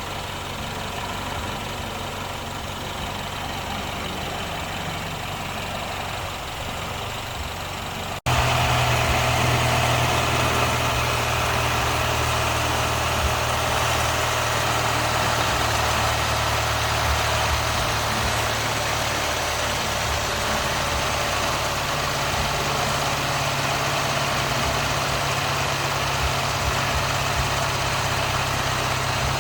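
Car engine idling steadily. About eight seconds in, the sound breaks off abruptly and resumes louder and fuller.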